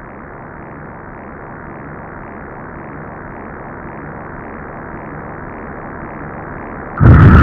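Trailer sound design: a muffled, dark synthesized drone that swells slowly, broken near the end by a sudden loud hit with a high ringing tone.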